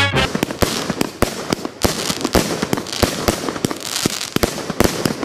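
Fireworks going off: an irregular rapid series of sharp bangs, about three or four a second, with crackling between them.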